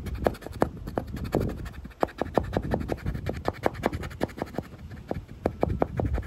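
Small plastic scraper scraping gummy vinyl-wrap adhesive off a boat hull in quick, repeated short strokes.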